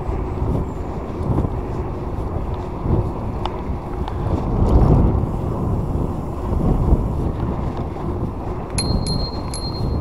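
Wind buffeting the microphone of a camera on a moving e-bike, a steady low rumble that swells briefly near the middle. Near the end a faint high tone comes in with a few light ticks.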